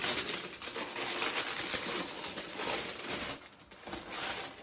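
Tissue paper rustling and crinkling as hands unfold and lift the wrapping inside a shoebox, dense for about three seconds, then easing, with a shorter burst near the end.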